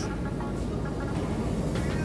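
Moving escalator running steadily while being ridden: an even low mechanical rumble and hum.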